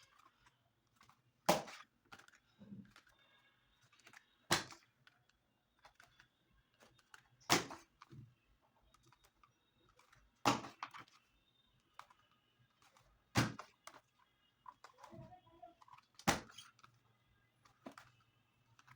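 Six sharp knocks, evenly spaced about three seconds apart, over a faint steady hum.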